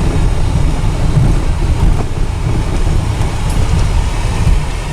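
Honda Odyssey minivan driving on a rough unpaved desert road: a steady low rumble of tyres and suspension with road noise.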